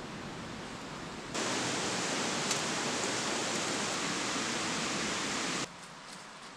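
Steady rushing of a rocky river, louder from about a second in and dropping suddenly to a fainter hiss near the end.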